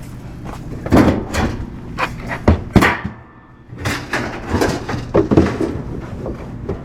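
Scrap metal being handled and loaded: a series of irregular knocks and clanks, with a short lull a little past halfway.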